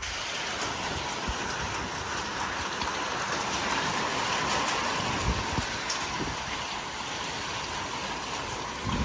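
Wind-driven heavy rain and strong winds of a severe thunderstorm, a steady rushing noise with a few low thumps.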